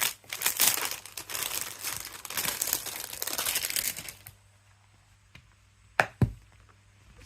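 Plastic packaging crinkling and rustling as it is handled and pulled open, for about four seconds, then two sharp knocks in quick succession.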